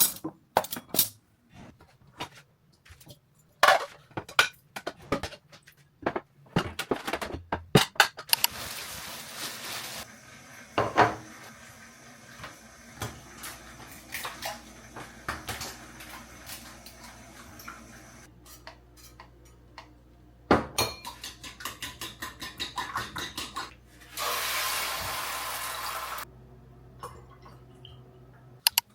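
Clean dishes and cutlery being put away by hand: plates, bowls and silverware clinking and knocking together in irregular bursts. Twice a steady rushing noise runs for about two seconds.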